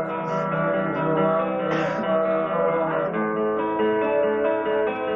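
Music with acoustic guitar, strummed chords changing every second or so.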